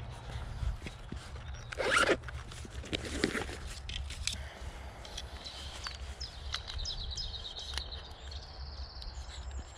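A zipper being worked, quick rasps among rustling handling noise, loudest about two and three seconds in.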